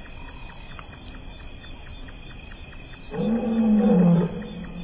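A male lion roaring in the distance: one long call about three seconds in, lasting just over a second, its pitch falling at the end. Under it runs a faint, regular ticking about five times a second.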